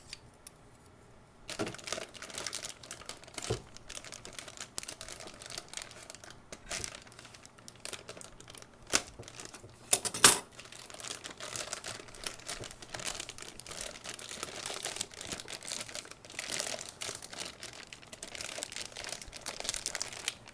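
Packaging around an external hard drive crinkling and tearing as it is opened, starting after about a second and a half. Scattered sharp clicks run through it, with one loud snap about ten seconds in.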